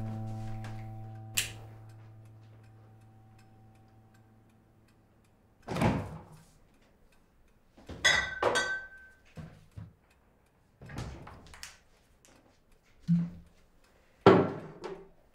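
A held music chord fades out over the first few seconds. Then come scattered knocks, thuds and clatter from objects being handled and moved, including a short ringing clink about eight seconds in.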